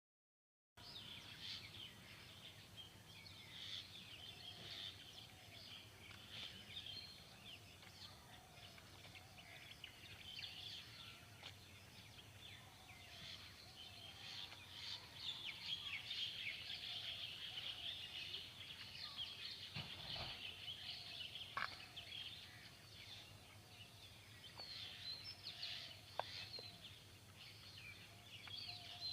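Many small birds chirping together in a dense, faint chorus of short high chirps, with a few lower calls mixed in. A soft knock comes about twenty seconds in.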